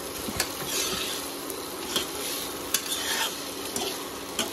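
Spiced potato pieces sizzling as they are dry-fried in oil and masala in a non-stick wok, while a perforated steel spatula stirs and scrapes through them, with a few sharp clicks of the spatula against the pan.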